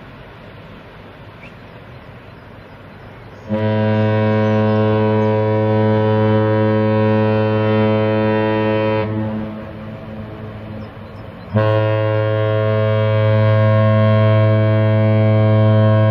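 Mein Schiff cruise ship's horn sounding two long, deep blasts, each about five seconds long, with a gap of about two seconds between them. The first starts about three and a half seconds in, after a steady background rush.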